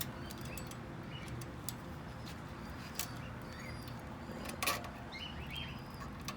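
A few sharp clicks and knocks of hand work on a go-kart's throttle cable, the loudest about three-quarters of the way through, with birds chirping in the background.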